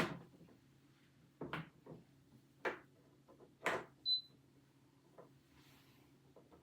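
Kitchen handling noise: about six separate knocks and clunks, followed just after four seconds in by a brief high-pitched beep, over a steady low hum.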